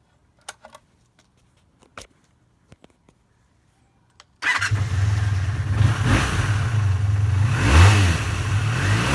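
A few small clicks, then about four and a half seconds in the 1985 Honda VF500F Interceptor's V4 engine starts, slightly warm and without choke, and runs with a couple of quick revs that rise and fall.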